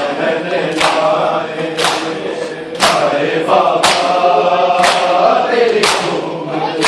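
Crowd of men chanting a Shia noha (mourning lament) in unison, with sharp chest-beating strikes of matam about once a second, in time with the chant.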